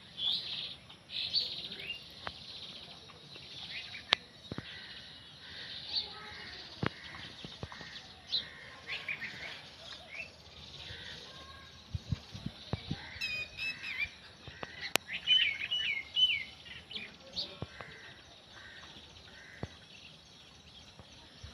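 Small birds chirping in short, high calls throughout, busiest in the second half with a run of quick twittering notes, and a few sharp clicks scattered among them.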